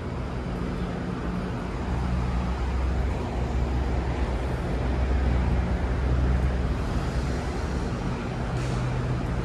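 Diesel commuter trains idling in a covered station train shed: a steady low rumble with a deep hum, swelling slightly midway.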